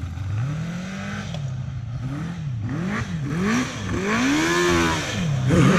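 Kawasaki GPZ550 inline-four motorcycle engine in a quad conversion, revved up and down again and again as the rider works the throttle. It grows louder toward the end as the quad comes closer.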